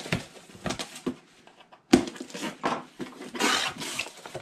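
A cardboard box being opened by hand: tape slit and the flaps pulled back, with rustling and scraping of cardboard and one sharp knock about two seconds in. Denser rustling near the end.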